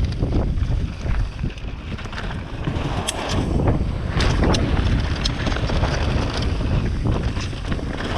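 Wind buffeting the microphone at riding speed, with the rattle and clatter of a mountain bike jolting down a rocky downhill trail; a few sharp clacks stand out around the middle.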